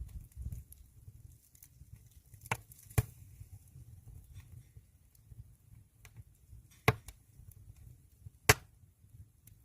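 Firewood burning in a traditional Korean agungi firebox: a low rumble of flames with faint crackling and four sharp, loud pops of the wood, the last near the end the loudest.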